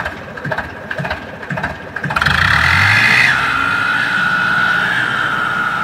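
Mahindra 595 Turbo tractor's diesel engine running, then revving up about two seconds in with a steady high whine: the hydraulic pump working under load to raise the tipping trailer's bed.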